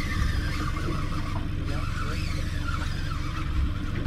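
Steady low rumble of wind buffeting the microphone on an open boat.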